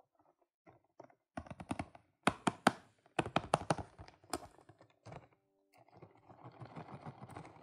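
Quick clusters of clicks and taps from fingers and nails handling a cardboard Kinder Surprise multipack box, loudest about two to three seconds in.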